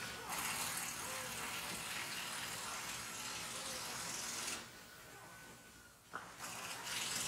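A steel rule scraping as it slides through the wooden marking gauge's slot: a long hissing scrape lasting about four seconds, then a shorter one near the end.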